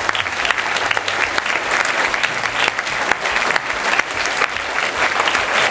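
School pupils and staff applauding: many hands clapping steadily, without a break.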